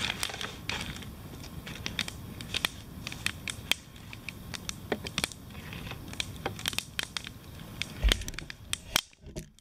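Wood fire crackling with sharp, irregular pops, mixed with the crinkle and rustle of plastic bags and a nylon dry bag being handled.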